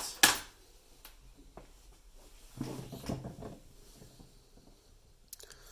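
Hand tools being picked up and set down on a workbench: a sharp clack just after the start, then a stretch of handling and rattling about two and a half seconds in, and a few small clicks near the end.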